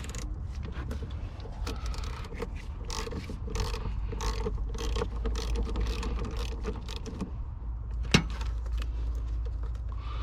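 Ratchet wrench with a 10 mm socket clicking in quick irregular runs as it turns a nut on a car battery, with a sharp knock about eight seconds in.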